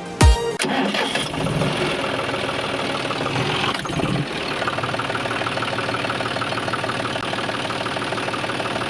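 Small engine of a homemade mini tractor starting up, then running with a rapid, steady pulsing beat.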